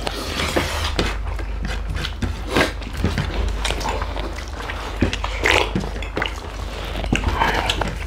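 Close-up eating sounds: chewing and lip smacks, with fingers working rice on plates and light clinks of the dishes, over a steady low hum. Louder mouth noises come about five and a half and seven and a half seconds in.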